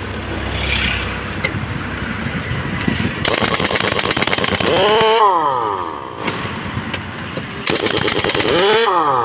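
Large pneumatic impact wrench hammering on a truck's wheel nuts in a fast, loud rattle, in two long runs. Between them its air motor whines up and down in pitch, around five seconds in and again near the end.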